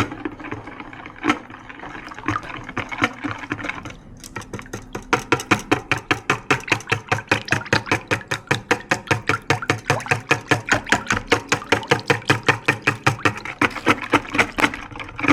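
Hand whisk beating a liquid cake mix of eggs, oil, milk and hot coffee in a bowl, the wires splashing through it and tapping the bowl. Slower and irregular at first, then fast, even strokes, about four to five a second, from about five seconds in.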